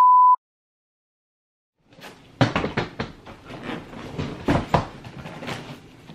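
A steady high beep cuts off just after the start, followed by about a second and a half of silence. Then a soft-sided fabric suitcase is handled and unzipped: rustling fabric, sharp clicks of the zipper and knocks against the case.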